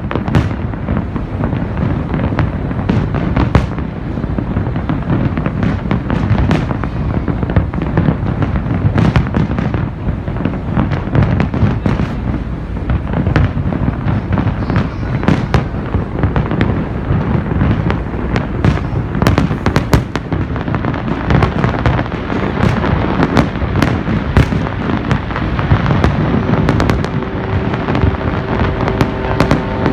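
Fireworks display going off in a dense, continuous barrage: deep booms overlapping with many sharp bangs and crackles, with no let-up.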